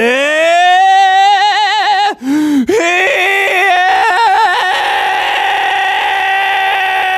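A man's voice sliding up into a high, held scream-sung note with a wide vibrato, breaking off briefly about two seconds in and then holding the high note again: a middle-pitch rock scream.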